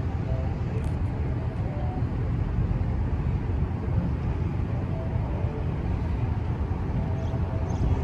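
Steady low rumble of a tugboat's diesel engines running, with a faint hum of machinery tones above it.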